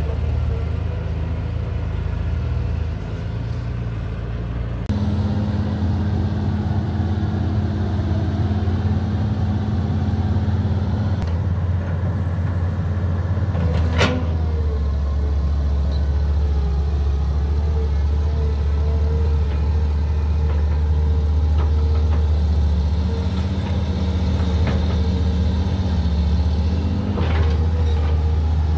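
Heavy-equipment diesel engine running steadily, its tone changing abruptly about five seconds in. A single sharp click comes about halfway through, and a few more come near the end.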